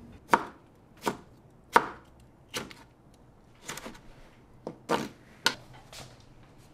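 Kitchen knife slicing tomatoes on a plastic cutting board: about nine sharp knocks of the blade striking the board at an uneven pace, stopping about six seconds in.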